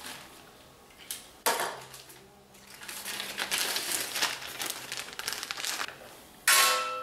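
A plastic parts bag crinkling as it is handled, with sharp knocks of small metal parts on a wooden workbench. Near the end a louder metal clank rings briefly and fades.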